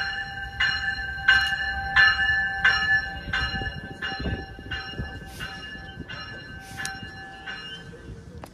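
Railroad grade-crossing bell ringing, about one and a half strikes a second, each strike leaving a bright ringing tone. A low train rumble runs beneath it. The bell stops near the end.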